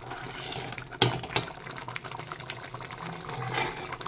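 Thick tomato chutney bubbling and simmering in a kadai, with two sharp knocks of the spatula against the pan about a second in.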